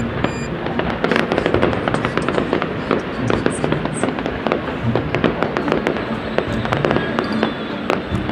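Fireworks display: a dense, continuous stream of crackling pops and sharp reports, with no let-up.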